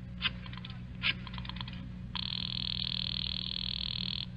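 Radio-drama telephone sound effect: a few light clicks of the dial being worked, then about two seconds in a buzzing telephone ring lasting about two seconds, as the call goes through. A low steady hum from the old recording runs underneath.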